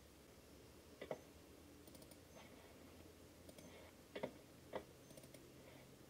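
Faint computer mouse clicks against near silence: a double click about a second in, another double click about four seconds in, and a single click soon after.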